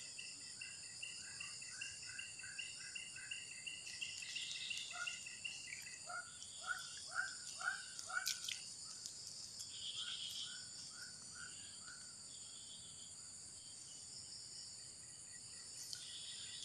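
Steady high-pitched drone of insects, with a bird calling runs of short repeated notes, about three a second, over the first ten seconds or so. A single sharp click comes about eight seconds in.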